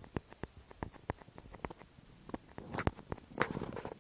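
Irregular small clicks and taps close to the microphone, with two brief rustles about three seconds in, like the recording device being handled.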